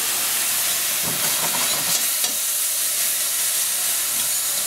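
Water hissing and sizzling in a hot stainless steel pan of diced onion and carrot, just poured in to deglaze it, as the vegetables are stirred. The steady hiss is the water boiling off.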